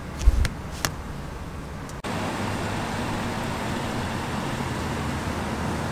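A few soft clicks in the first second, then from about two seconds in a steady low rumble of an idling vehicle.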